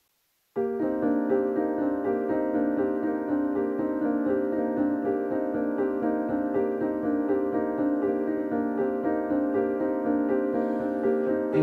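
Background music with piano, starting suddenly about half a second in after a brief silence.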